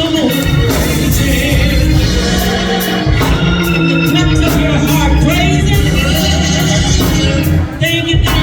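Gospel praise music: electric organ playing held chords under singing voices, with a steady drum and cymbal beat.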